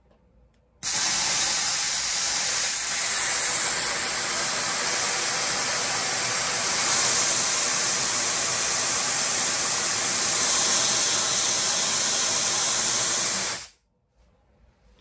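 Targeted cryotherapy machine's handpiece spraying a jet of freezing gas: a loud, steady hiss that starts about a second in and cuts off suddenly near the end.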